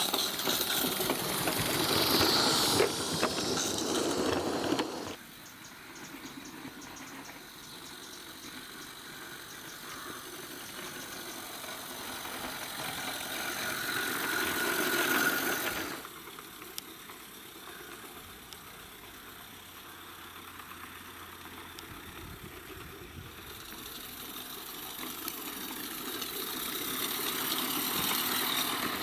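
Garden-scale model steam-outline locomotives running over the track with a mechanical rattle, louder as each one draws near. The sound drops away suddenly about five seconds in, swells again, cuts off sharply around the middle, then builds again near the end.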